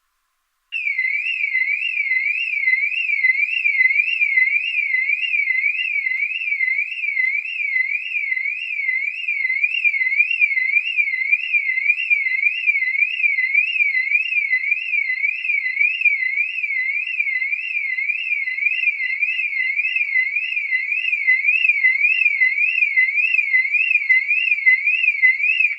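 Distant car alarm siren sounding: a single tone sweeping steadily up and down, about one and a half sweeps a second, starting about a second in.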